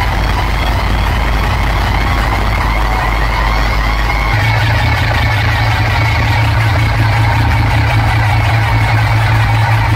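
Loud DJ music from a truck-mounted speaker system: a heavy bass drone that steps up to a higher note about four seconds in, with a wavering synth line above it.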